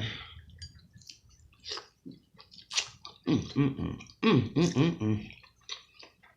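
Close-up wet chewing and lip smacking of a mouthful of king crab meat, many short moist clicks. About three seconds in, two low hummed "mmm" sounds of enjoyment, louder than the chewing.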